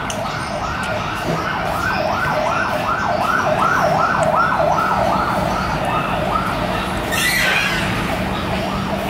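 Siren sounding in fast repeated up-and-down sweeps, about three a second, growing louder toward the middle and fading again near the end.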